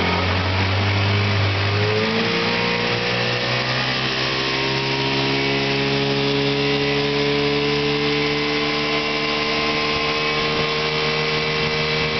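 1984 Sea King 15 hp two-stroke outboard motor running under way, speeding up about two seconds in and then holding a steady, higher pitch.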